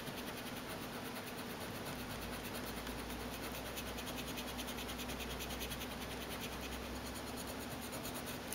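The rubber eraser nub of a Pilot FriXion pen rubbed quickly back and forth on paper, a steady rapid scratching that erases the heat-sensitive gel ink without tearing the paper.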